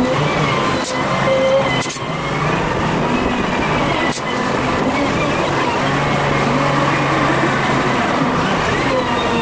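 Volvo BM 4300 wheel loader running continuously, its engine note rising and falling as it works the bucket, heard sped up five times. A few sharp clicks or knocks come through, around one and two seconds in and again near four seconds.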